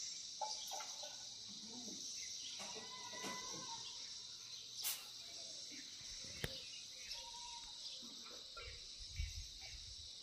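Forest ambience: a steady high drone of insects, with faint scattered bird calls, two sharp clicks a little past the middle, and a low thump near the end.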